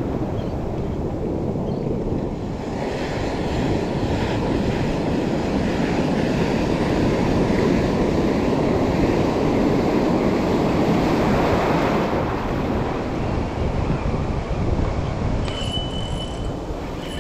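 Waves washing through shallow surf, with wind on the microphone: a steady low rush that swells about halfway through.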